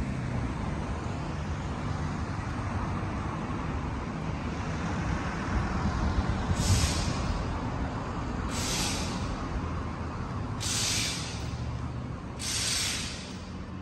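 A steady low hum with four short hisses in the second half, each under a second long and about two seconds apart.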